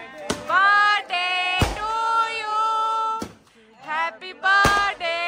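High-pitched voices singing in long, held notes, broken by sharp firecracker bangs about every second and a half, two of them loud.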